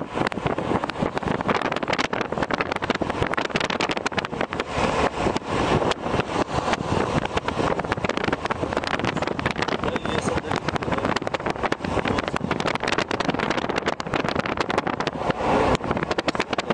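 Car driving steadily along a country road: continuous road and engine noise heard from inside the moving car, with wind crackling and buffeting on the microphone throughout.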